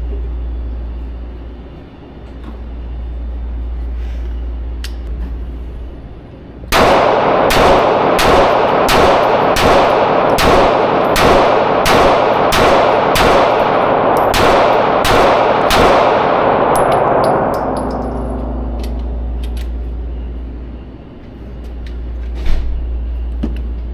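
Handgun fire: more than a dozen shots fired at a steady pace, about 0.7 s apart, each ringing out with a lingering echo, starting about a quarter of the way in. A single sharp crack follows near the end.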